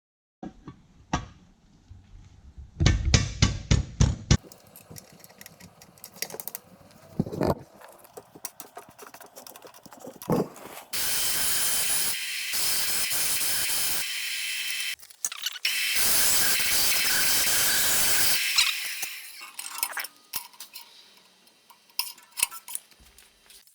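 Workshop work on bandsaw parts: scattered clicks and metal knocks, then two long hissing bursts of a few seconds each, like a spray or an air jet.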